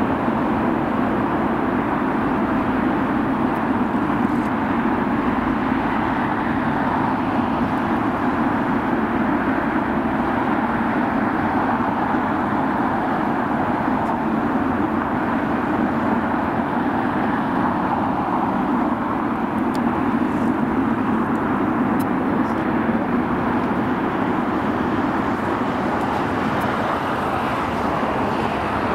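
Steady, unchanging roar of distant engines, an even din with no single vehicle or aircraft swelling and fading past.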